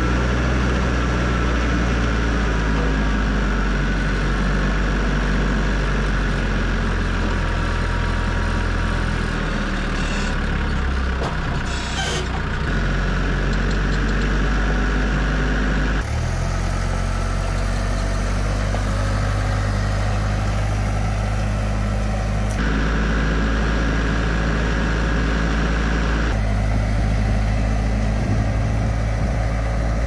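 Branson 4720C compact tractor's diesel engine running steadily while it works its front loader, with a couple of brief knocks about ten to twelve seconds in. The engine note shifts abruptly a few times.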